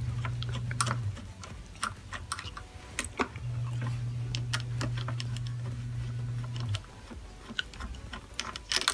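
Screwdriver taking small screws out of a scooter's handlebar throttle housing: scattered light clicks and ticks of metal and plastic. A low steady hum plays at the start and again for a few seconds in the middle.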